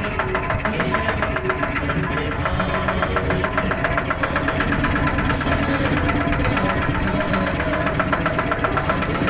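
Motorboat engine running steadily with a rapid, even knock.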